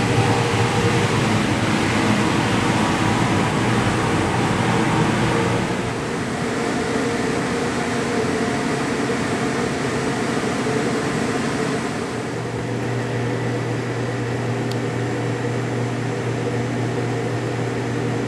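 Steady machinery hum of a commercial kitchen's ventilation fans and refrigeration, with a few held tones. The sound changes slightly about six and twelve seconds in.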